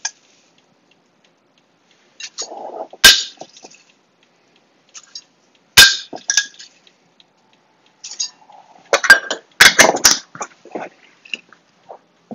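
Rolled oats being scooped from a large glass jar with a measuring cup: a soft rustle of oats, then sharp clinks of the cup against the jar, one every few seconds and a quick run of them later on.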